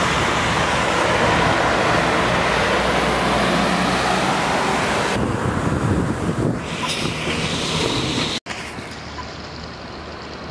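A truck driving along a water-covered road, its tyres hissing through the water over the engine, loudest for the first five seconds. After a cut near the end, a steadier, quieter rush of water surging up from a burst water main.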